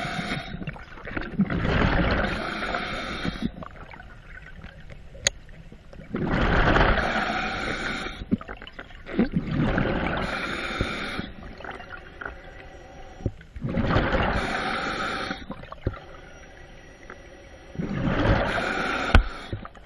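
A scuba diver breathing through a regulator underwater: a burst of gurgling exhaust bubbles about every four seconds, with quieter breaths in between.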